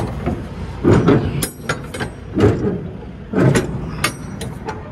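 Metal clanks and clicks of a shipping container's door handles and locking bars being worked open, with three heavier knocks, over a low steady rumble.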